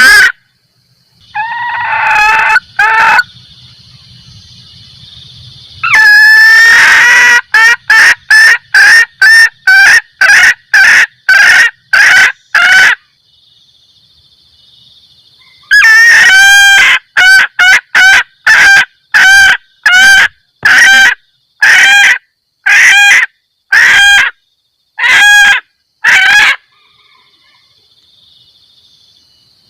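Female red junglefowl giving its 'kekkek' mating cackle, the call used as a lure to bring in males: two long runs of short, loud calls about two a second, after a longer, lower call about two seconds in. A thin steady high whine sounds in the gaps between runs.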